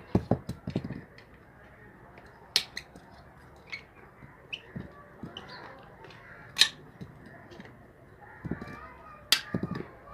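Scattered sharp metal clicks and knocks from hand tools working on a washing machine motor, a few loud ones some seconds apart, with short dull thuds near the start and near the end.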